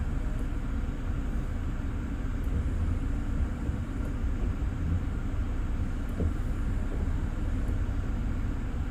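Car engine idling, heard from inside the cabin as a steady low rumble, with faint light ticks every couple of seconds.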